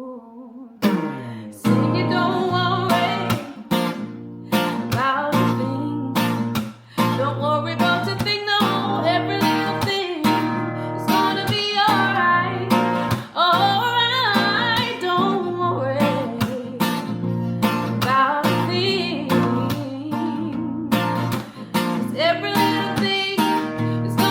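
Music: a strummed acoustic guitar with a melody line carried over it, with no sung words. There are short breaks about half a second in and again about seven seconds in.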